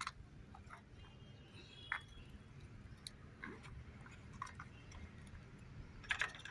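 Faint scattered clicks and taps over a low room hum, with a sharper tap about two seconds in and a short cluster of clicks near the end: a small plastic toy truck being handled and moved on a metal step.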